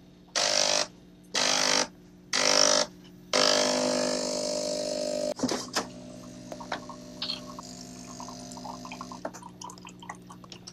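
BORK espresso machine's motor running in four bursts: three short ones about half a second each, then one about two seconds long that cuts off sharply. After that comes a click, then light clicks and clinks of a small fridge door and cartons, with a faint steady hum underneath.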